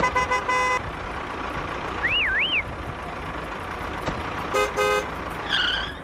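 Vehicle horn honking in short toots at the start and again near five seconds, over a steady engine-like background noise. A wavering whistle-like tone comes about two seconds in, and a short falling chirp comes near the end.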